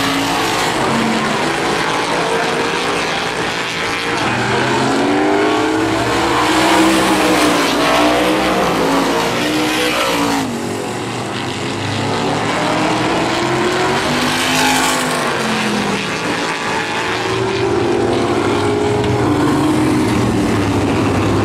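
Several supermodified race cars at racing speed, their engines rising and falling in pitch as they power through the turns and pass by, overlapping with one another. The sound dips briefly about halfway through.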